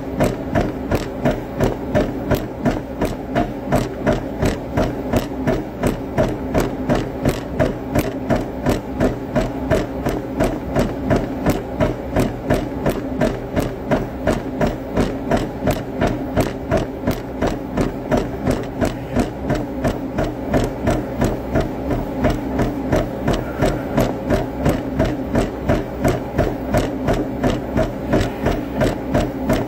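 Steady rhythmic knocking, about two and a half knocks a second, over a constant low hum.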